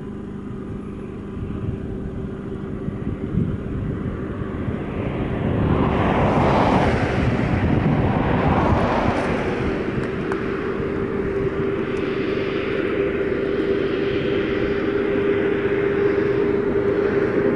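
Car travelling along a highway: steady road and engine noise with a constant hum, building up over the first several seconds, with two louder swells about six and nine seconds in.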